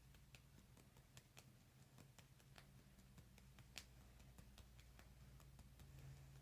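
Near silence: a faint steady low hum with scattered faint ticks, one slightly louder about four seconds in.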